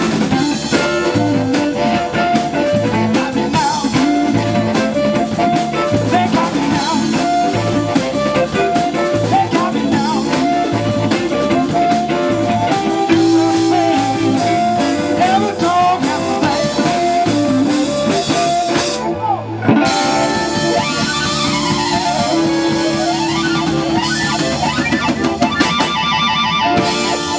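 Live electric blues band playing: electric guitar, electric bass, drum kit and harmonica. The band stops short briefly about two-thirds through, then plays on with held notes.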